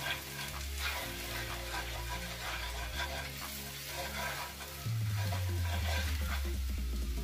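Butter with garlic, ginger and curry powder sizzling in a nonstick frying pan while a wooden spoon stirs and scrapes through it. Low background music runs underneath and gets louder about five seconds in.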